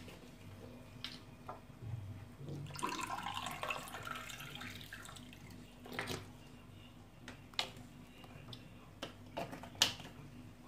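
Milk poured from a bottle into a glass, a splashing pour lasting about two seconds near the start, followed by a few sharp clicks and knocks of the cap and glass.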